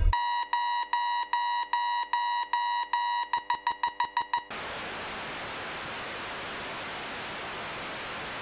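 Electronic alarm beeping, a steady tone repeating about twice a second, then quickening to a rapid string of beeps. About halfway through it gives way to a steady hiss of static noise.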